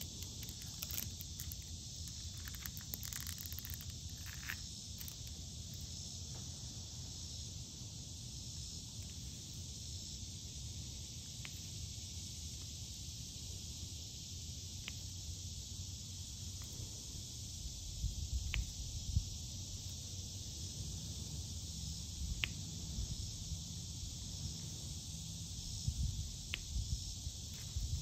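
A steady, high-pitched drone of cicadas, with a faint click every few seconds as resin drills are pressed onto the canvas with a drill pen. Low rumbling thumps come in during the second half.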